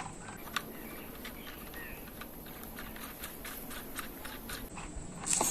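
Small irregular clicks and light rattles of a part being fitted and screwed tight onto the front of an electric drill by hand.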